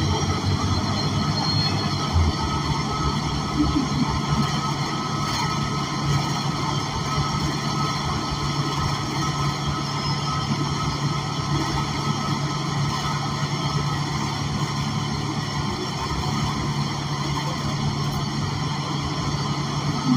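Cabin sound from the rear of an ENC Axess transit bus: its Cummins Westport L9N natural-gas engine and Voith automatic transmission running steadily as the bus drives, a constant low hum with road and body noise over it.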